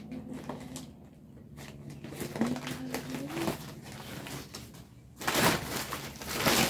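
Woven plastic sack rustling and crinkling as hands work at its tied neck, in scattered small bursts and then a dense stretch over the last second and a half. A faint low tone, rising at its end, is heard about halfway through.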